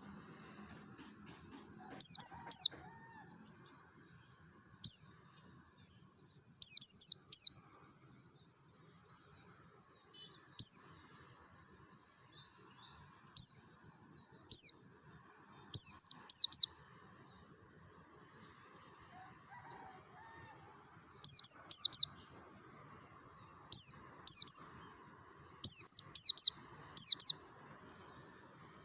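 A white-eye (pleci) calling in wild 'ngalas' style: sharp, high chirps that slide downward, given singly or in quick runs of two to four, with pauses of a few seconds between.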